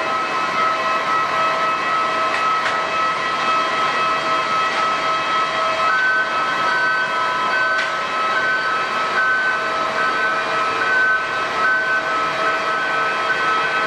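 Jet airliner engines running: a steady rushing noise with several high, whining tones that pulse about twice a second. A further, slightly higher tone joins about six seconds in.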